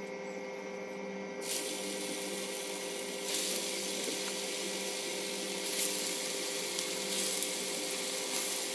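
Green pea vadas sizzling as they are dropped one at a time into hot oil, the oil bubbling hard around them. The sizzle grows louder in steps as each vada goes in, first about a second and a half in and again at about three seconds, over a steady low hum.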